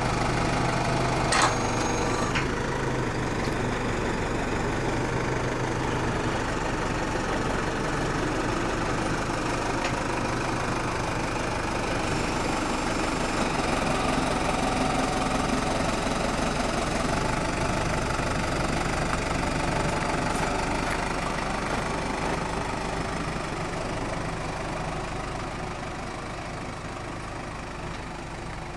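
Case IH JXU 105 tractor's diesel engine running steadily as the tractor works a homemade crane carrying a jumbo bag, with one sharp knock about a second and a half in; the engine grows quieter near the end.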